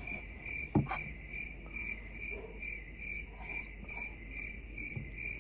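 Cricket chirping, one steady high chirp about twice a second, in the manner of the stock 'crickets' sound effect for an awkward silence. A single short knock about a second in.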